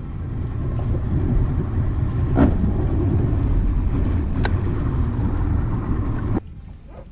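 An engine running at speed: a loud, steady low rumble, with two sharp knocks about two and a half and four and a half seconds in, then a sudden cut-off near the end.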